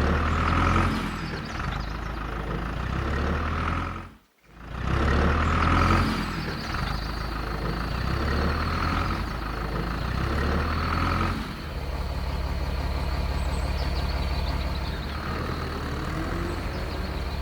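Miniature toy truck running with a steady engine-like rumble, broken by a brief cut near four seconds and shifting to a faster, buzzier rhythm about twelve seconds in.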